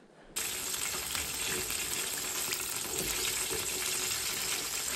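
Breaded squirrel pieces deep-frying in a pan of hot oil: a steady sizzling and crackling that starts suddenly about a third of a second in.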